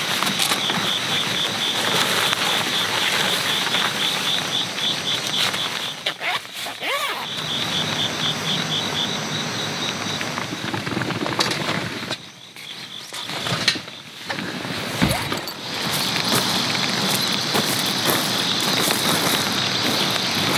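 Insects chirping in a steady pulsing rhythm over a constant outdoor wash. The chirping drops out in the middle, where there are a few knocks and rustles, and then comes back.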